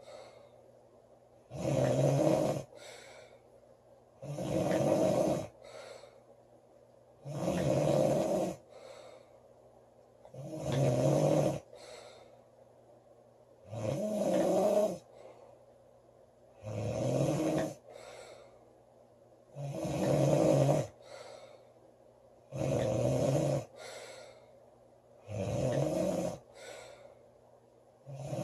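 A girl snoring loudly and regularly: a heavy snore about every three seconds, each lasting about a second and followed by a short faint breath.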